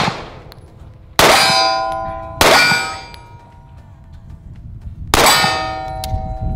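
Pistol shots hitting steel targets: three sharp cracks, each followed by the metal plate ringing with a bright tone that dies away over about a second, a different pitch for each plate. The ring of an earlier hit is fading at the start.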